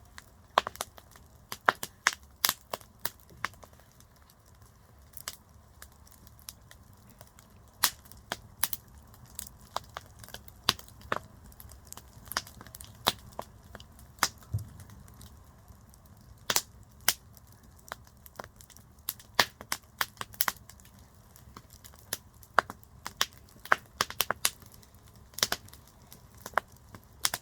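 Wood campfire crackling: irregular sharp pops and snaps, some loud, over a quiet steady background.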